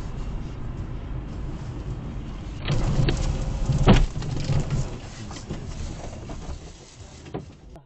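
A car's road and engine rumble heard from inside the cabin, then a louder rush of noise as the car slides off the road into deep snow, with a hard thump about four seconds in as it hits the snowbank.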